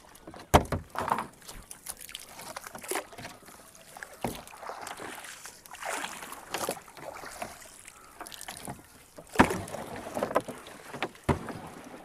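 A small boat being pushed along with a bamboo pole while a fishing net is paid out over the side: irregular splashes and sharp knocks against the hull, the loudest about half a second in and again near nine seconds.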